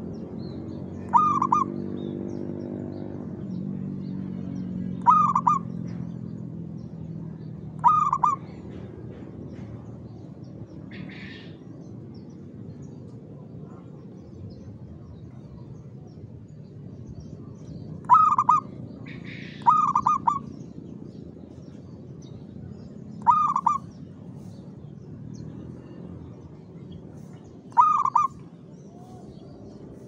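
Zebra dove (perkutut) cooing in short, loud phrases, seven times at uneven gaps, with a long pause in the middle. A low hum rises and fades in the first few seconds.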